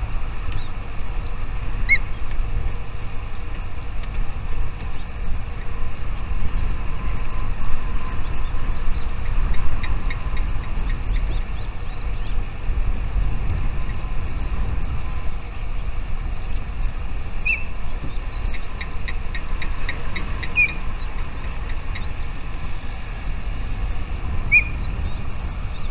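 Small birds chirping: a single short chirp now and then, and a quick run of chirps lasting a few seconds near the middle. Under it runs a steady low rumble, the loudest sound.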